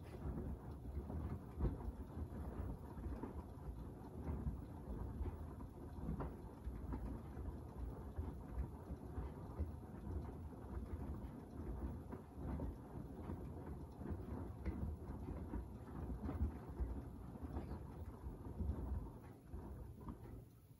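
Beko WDR7543121S washer-dryer drum turning a wash load: foamy water sloshing and clothes splashing inside the drum, with a low rumble. It stops at the very end as the drum pauses between turns.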